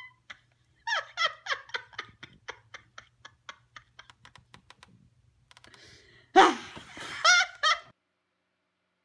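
A woman laughing in a run of short, high-pitched giggles that fade, then a louder burst of laughter.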